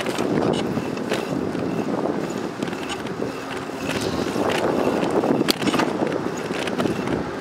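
Bicycle riding on a paved path: steady wind noise on the microphone with the rumble of tyres on the pavement, and a few sharp clicks and rattles from the bike.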